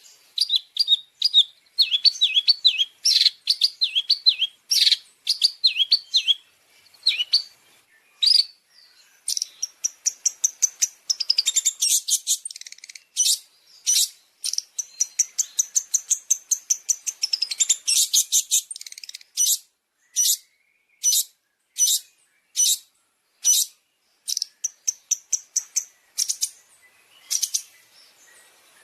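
Long-tailed shrike (cendet) singing: a fast, varied string of high chirps and trills. From about two-thirds through it changes to sharp single notes, repeated a little faster than one a second.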